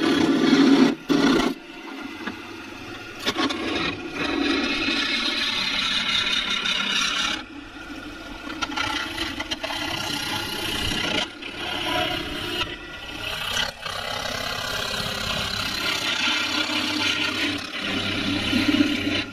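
Half-inch spindle gouge cutting a spinning resin-and-grapevine bottle-stopper blank on a lathe, riding the bevel for a smooth cut and throwing long resin ribbons. A steady scraping hiss runs over the lathe's running hum, broken by a few short gaps where the tool comes off the work.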